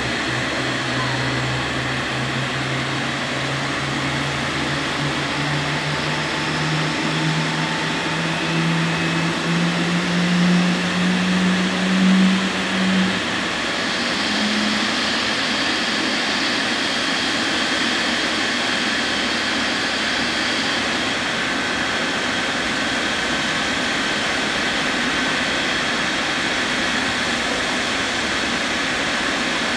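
Boeing 777 jet engines running at idle just after engine start: a steady roar with a thin high turbine whine. A lower hum rises slowly in pitch over the first dozen seconds and then cuts off.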